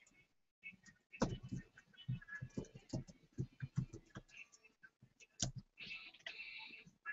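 Typing on a computer keyboard: irregular keystrokes and clicks, some with a dull thump.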